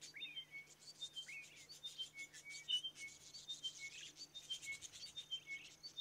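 Chiming wedgebill song: a phrase of short, clear notes stepping down the scale, repeated over and over every second or two, with a shorter bent note slipped in a few times. It is a duet: one bird sings the repeating phrase while its partner inserts the short note.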